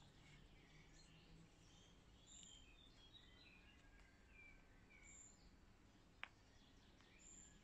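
Near silence, with faint, scattered bird chirps and whistles in the background and a single sharp click about six seconds in.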